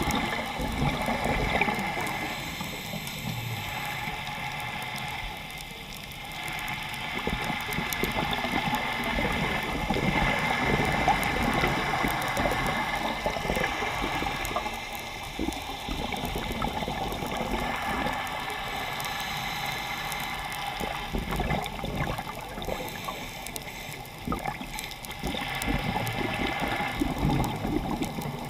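Underwater sound through a camera housing during a scuba dive: a continuous water wash with the gurgle of the diver's exhaled regulator bubbles, swelling and easing every several seconds with the breathing.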